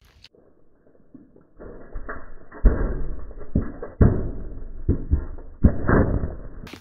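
Car tyre rolling onto a full aluminium Coca-Cola can on asphalt, the can crunching and crumpling under the weight with heavy thuds about two and a half, four and five and a half seconds in, the last as the can bursts and sprays soda. The sound is muffled and deep, with no high treble.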